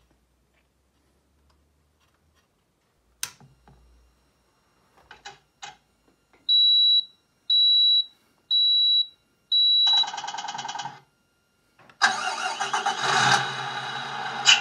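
Sound unit of a Tamiya Scania R620 model truck playing through a small speaker: four short high beeps about a second apart, then a recorded starter cranking briefly and a V8 diesel engine firing up, revving once and settling to idle. A single click sounds about three seconds in.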